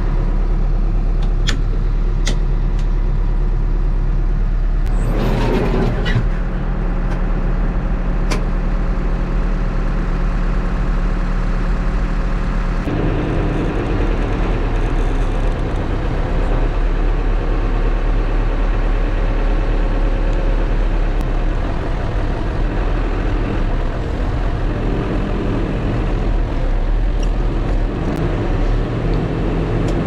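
HEPCO backhoe loader's diesel engine running steadily, heard from inside the cab while the backhoe hydraulics are worked with the control levers. A brief rushing noise comes about five seconds in, and the sound grows heavier about halfway through.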